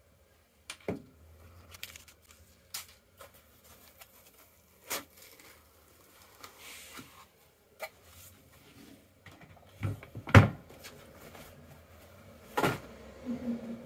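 Handling noise from a folded synthetic-stock air rifle being lifted out of a foam-lined case and set on a table: scattered plastic clicks and knocks with light rustling, and two louder knocks in the last few seconds.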